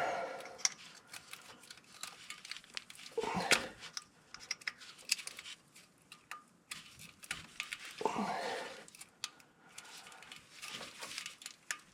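Scattered light clicks and rattles of a plastic O2 sensor wiring connector being worked by hand as it is pushed together, with two short grunts of effort about three and a half and eight seconds in.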